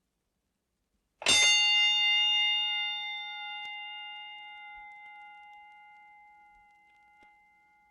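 Boxing-ring fight bell struck once, about a second in, then ringing with several overtones and slowly fading away over the next six seconds.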